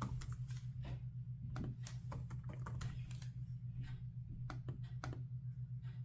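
Typing on a Framework Laptop's keyboard: an irregular run of quick key clicks over a steady low hum.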